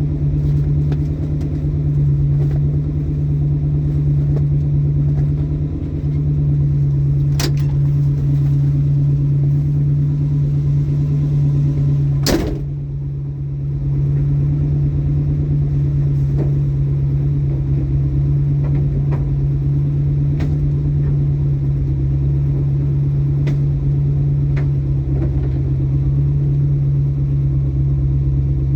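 Classic Ford Mustang Mach 1 on a test drive, its engine and road noise holding a steady drone. A sharp knock comes about 12 seconds in, followed by a brief dip in the engine note, and a fainter click comes earlier.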